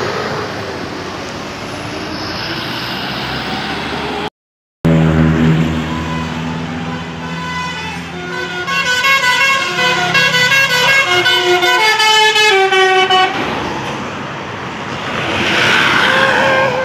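Road noise from passing traffic, then after a brief cut a bus's Basuri telolet musical horn plays a tune of quick stepping notes for about eight seconds before traffic noise returns.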